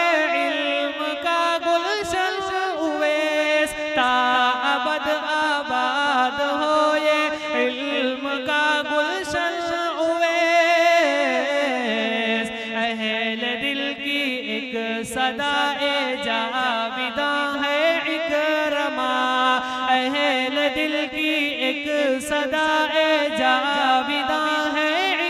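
Group of voices singing a tarana, an unaccompanied devotional anthem: a wavering melody over a held vocal drone that moves to a new note a few times.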